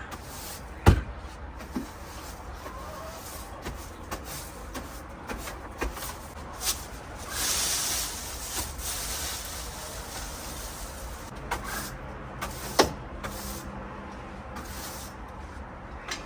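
Scattered knocks and clatter from garden cleanup work, with a brief rustling scrape about seven seconds in.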